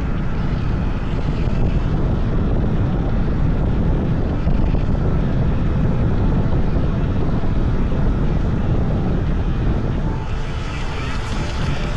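Wind buffeting the microphone of a bike-mounted camera while riding, a steady low rumble. Near the end the rumble eases a little and a higher hiss comes up.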